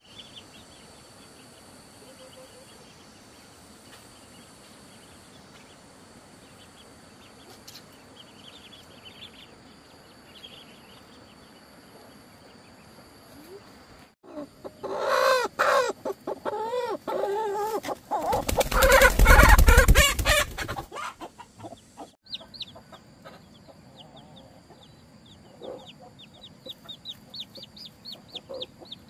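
Chickens clucking and squawking loudly for several seconds midway, after a quiet stretch with only faint high chirps. Near the end, chicks peep rapidly in short, high, falling notes, several a second.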